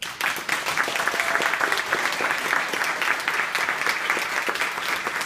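Audience applauding, starting all at once and carrying on steadily.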